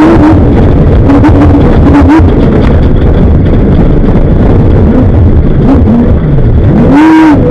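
Off-road desert race vehicle's engine running hard at speed, its pitch rising and falling with the throttle, with frequent knocks and rattles from the chassis over rough ground. Near the end the engine note drops sharply and climbs straight back as the throttle is lifted and reapplied.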